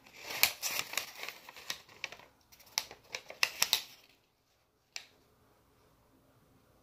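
Paper rustling and a quick run of light ticks and knocks as a flashlight is handled and set on a sheet of notebook paper. These stop about four seconds in, and a single sharp click follows about a second later.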